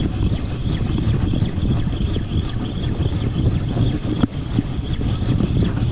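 Fishing boat's engine running steadily, with wind noise on the microphone.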